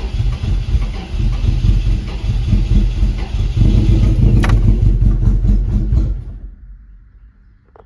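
Freshly installed Toyota 3RZ 2.7-litre four-cylinder engine on a first-start attempt, cranking and firing unevenly. It gets louder about halfway through, then dies away about six seconds in.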